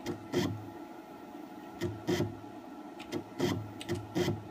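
X2 mini mill's X-axis stepper motor turning the leadscrew in short jog moves: a series of brief buzzes with clicks, mostly in quick pairs, as the table is jogged back and forth to check the backlash compensation against a dial indicator.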